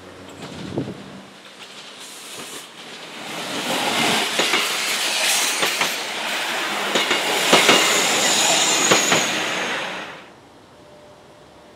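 PESA SA134 diesel railcar passing close by: an engine hum at first, then loud wheel-and-rail noise with repeated clacks over the rail joints and a brief high wheel squeal near the end. The noise cuts off suddenly about ten seconds in.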